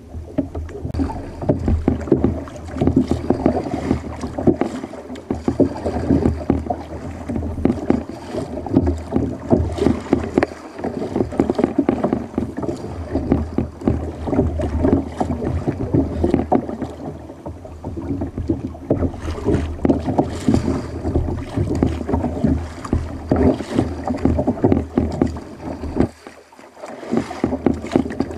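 Sea water sloshing and splashing against a fishing kayak's hull on choppy water, with paddle strokes, heard as a continuous uneven wash with many small irregular splashes.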